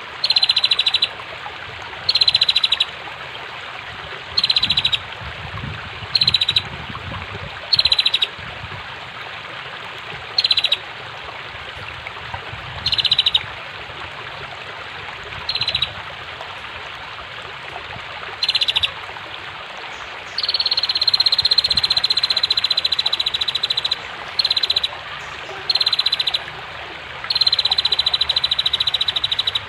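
Female prenjak (bar-winged prinia) calling, a rapid rattling trill in short bursts every two or three seconds, with two longer runs in the second half, over a steady rush of flowing water.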